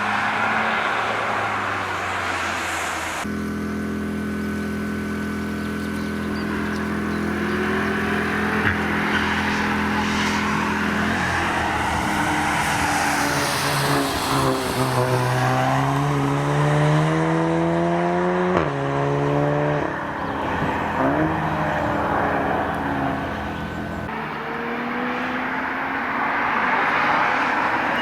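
Cars driving past on a wet race track. A hiss of tyres opens, then one engine holds a steady note before its revs climb, drop sharply at a gear change about two-thirds through and climb again, and tyre hiss returns near the end.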